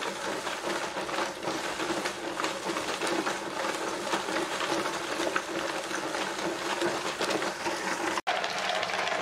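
Ice-cream container being turned by hand in a packed bed of crushed ice and rock salt, the ice and salt grinding and crunching against its sides in a continuous rattle of small clicks. The sound cuts out for an instant about eight seconds in.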